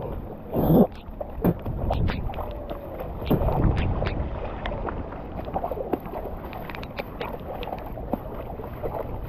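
Footsteps splashing through shallow floodwater, a splash every half second or so, with wind rumbling on the microphone.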